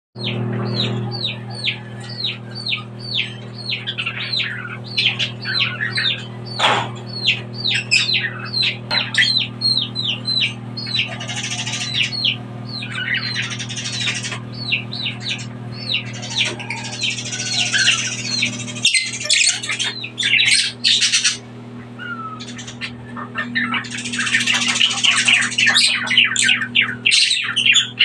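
Many pet parrots calling together: rapid, repeated chirps and shrill squawks, busiest near the end, over a steady low hum.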